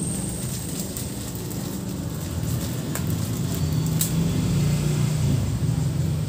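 A steady low rumble that swells a little in the second half, with plastic bags crinkling and a couple of sharp clicks as they are handled and tied with rubber bands.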